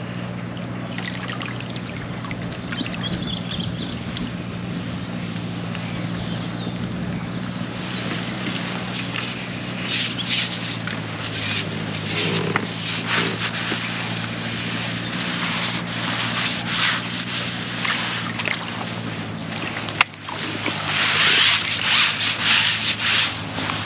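Steady wind rumble with clothing and tackle rubbing and rustling close to the microphone. Louder scraping and rustling come in from about eight seconds in, and a louder stretch follows near the end as a landing net is handled.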